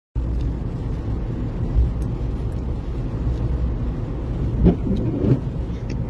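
Car driving on a snow-covered road, heard from inside the cabin: a steady low rumble of engine and tyre noise.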